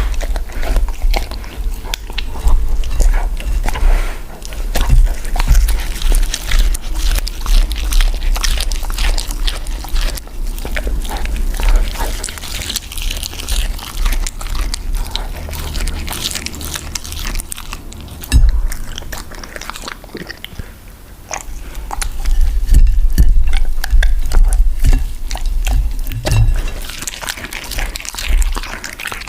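A dog chewing and biting food close to the microphone: dense, irregular crunches and clicks with low thuds.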